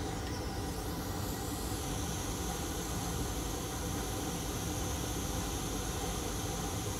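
Steady rushing airflow and hum of a hot air rework station blowing while a small inductor is being soldered onto a circuit board. A thin higher hiss joins about two seconds in.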